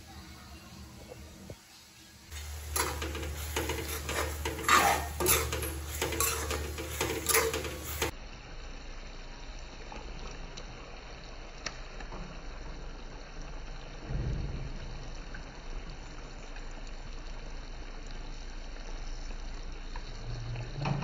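Kitchen cooking sounds: a few seconds of loud splashing and clattering, typical of meat being rinsed in a steel bowl, then a fainter steady sizzle as meat pieces are dropped into hot spiced oil in a wok, with a low thump partway through.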